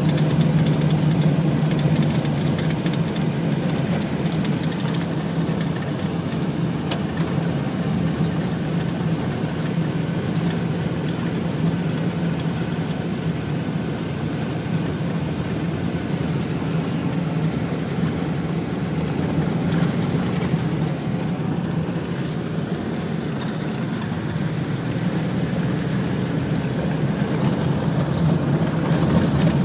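Car driving, heard from inside the cabin: a steady low engine drone mixed with tyre and road noise.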